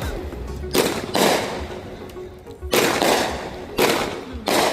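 Consumer fireworks going off: about five sharp bangs at irregular intervals, each with a short fading tail.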